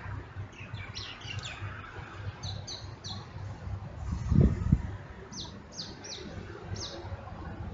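Small birds chirping: short, high, downward-sliding chirps in several quick groups. A loud low thump about four and a half seconds in, over a steady low rumble.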